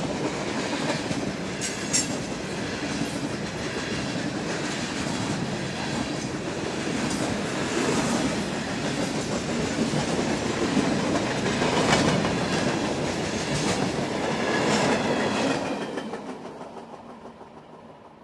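Tank cars and gondolas of a CSX mixed freight train rolling past: a steady rumble of wheels on rail with sharp clacks. It fades away after the last car passes, about 16 seconds in.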